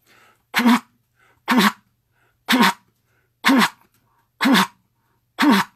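A goose call blown by mouth, sounding six short spit notes about one a second. Each note starts abruptly, jumps up in pitch and drops back, then is cut off sharply.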